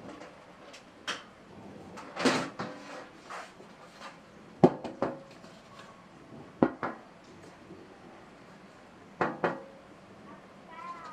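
Hard clicks and knocks of PC parts being handled and fitted into a computer case. There is a short scrape a little after two seconds, single sharp clicks near five and seven seconds, and a quick pair of clicks a little after nine seconds.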